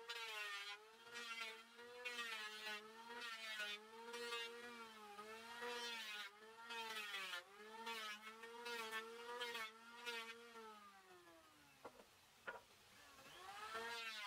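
A small motor running with a wavering pitch that dips and recovers every second or so. It winds down about eleven seconds in, two clicks follow, and it spins back up near the end.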